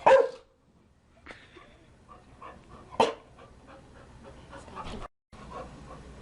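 Chow Chow barking: two loud, short barks about three seconds apart, with quieter, softer dog sounds in between.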